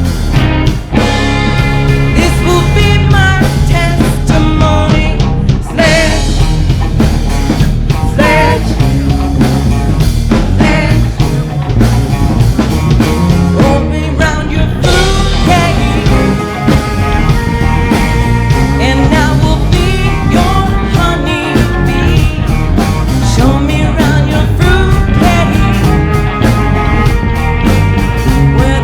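Live rock band playing loudly, with electric guitar and singing over bass and drums.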